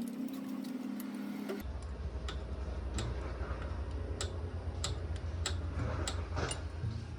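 Motorcycle engine running with a steady low drone and sharp, irregular ticks roughly every half second to second. The sound changes abruptly about a second and a half in.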